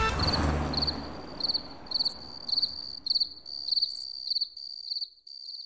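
Crickets chirping at night: a steady high trill with louder pulses about twice a second. In the first couple of seconds a fading wash of sound dies away under it.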